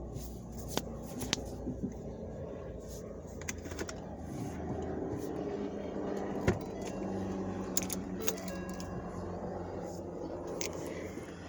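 Car engine running steadily, with scattered clicks and knocks over it; a sharp knock about six and a half seconds in is the loudest.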